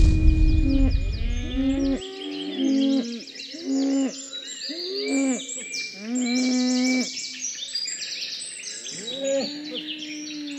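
A herd of cattle mooing, many long overlapping calls one after another, with faint bird chirps in the background. A low rumble sits under the calls for about the first two seconds.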